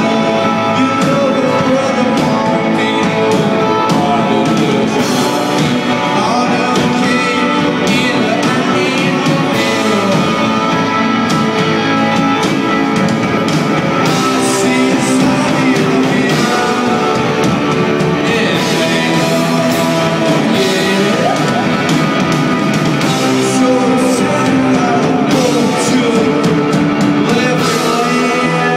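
Live rock band playing loud, with electric guitars, a drum kit and singing, recorded on a phone from the crowd.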